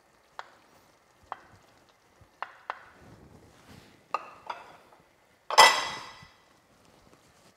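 Wooden spoon knocking and scraping against a small glass bowl as cherry tomatoes are tipped into a frying pan of pasta: about six sharp knocks over several seconds, with a faint sizzle from the pan. About five and a half seconds in, the loudest sound, a ringing clatter as the bowl is set down.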